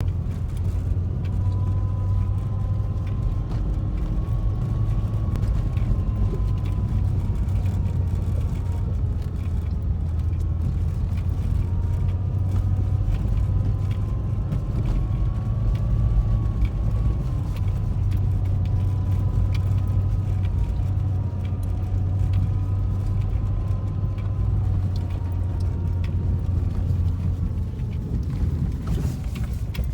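Steady low rumble of a motor vehicle running, with a faint wavering whine above it.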